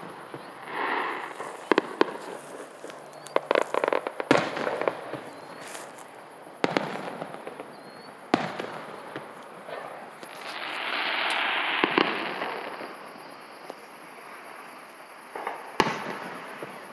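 Fireworks display: sharp bangs of shells bursting every couple of seconds at irregular intervals, with bursts of crackle and a longer hissing swell about ten seconds in.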